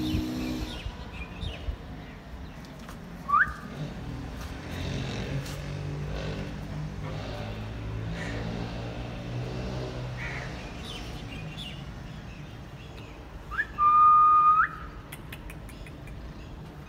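A person whistling twice: a short rising whistle about three seconds in, then a louder, held whistle lasting about a second near the end that rises at both ends.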